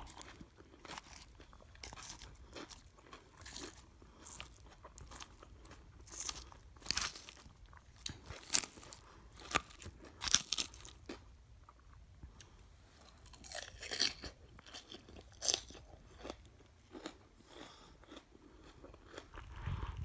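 Close-miked chewing of a dressed salad: crisp raw vegetables crunching in irregular bites, with the loudest crunches bunched in the middle.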